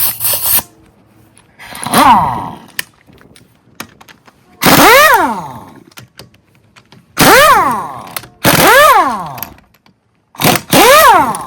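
Impact wrench with a 17 mm socket breaking loose and spinning out the front wheel bolts. There are about five bursts, each rattling as the motor revs up and winds back down.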